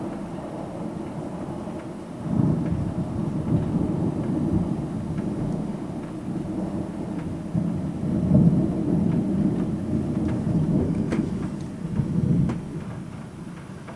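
Thunder rolling in long, low rumbles that swell several times, loudest about eight seconds in, over steady rain; it fades near the end.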